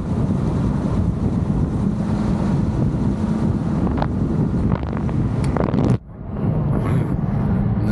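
Wind buffeting the microphone of a camera held outside a moving car, over the low drone of the car's engine and tyres on the road. About six seconds in the wind noise drops away suddenly, leaving mainly the engine and road noise.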